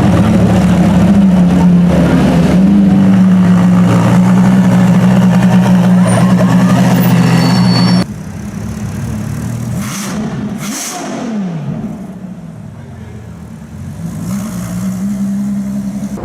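Ferrari LaFerrari's V12 running with a steady, loud drone for about eight seconds. After a sudden cut it is quieter, with one falling sweep in pitch, and near the end the steady drone returns.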